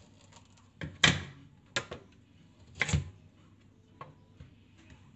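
Chef's knife chopping through a carrot and knocking on a wooden cutting board: four sharp knocks in the first three seconds, the loudest about a second in, then two lighter taps.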